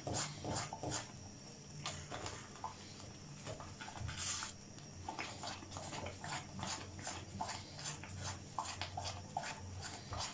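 Silicone spatula stirring a thickened sweet potato and custard kheer in a nonstick pan: irregular soft taps and scrapes against the pan, with a longer scrape about four seconds in, over a faint steady hum.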